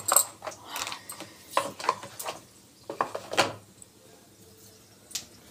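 Kitchen containers and their lids being handled: a quick run of about ten clicks, clinks and knocks, the loudest at the start, dying away after about three and a half seconds.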